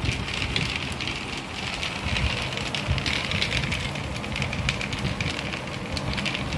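Dry dog kibble pouring from a bag into a plastic storage jar: a steady rattling patter of many small pieces landing.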